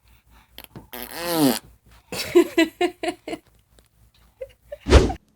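Baby farting: a drawn-out fart about a second in and a short, sharp one near the end, which is the loudest sound, with a run of laughter between.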